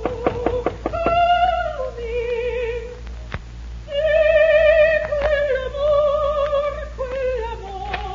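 A soprano singing operatic phrases, long held notes with a wide vibrato, stepping up and down in pitch, with a short break about three seconds in. A few sharp taps sound in the first second, and the whole has the narrow, muffled sound of a 1949 radio recording.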